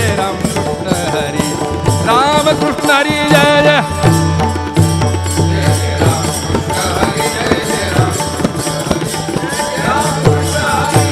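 Devotional bhajan music without singing: a tabla-like drum and small cymbals keep a steady rhythm under sustained low notes, and a wavering melody rises about two seconds in.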